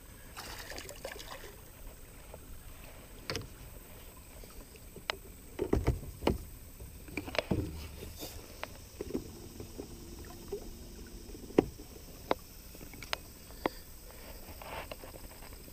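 Scattered knocks and clatter of a landing net and fishing gear against a small fishing boat while a bass is netted, with a few louder thumps about six seconds in and again near seven and a half seconds.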